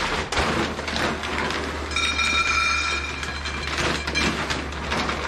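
Dry dog kibble rattling and clinking in a bowl, with a bright metallic ring for about a second midway.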